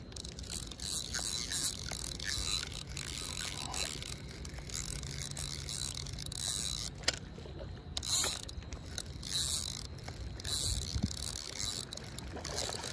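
Spinning reel being cranked, its gears whirring in repeated stretches, with two sharp clicks about seven and eight seconds in.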